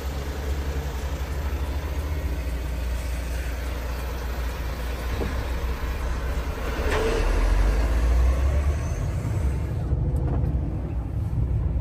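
Heavy truck on the move, its engine and road noise a steady low drone, with a brief swell of noise about seven seconds in.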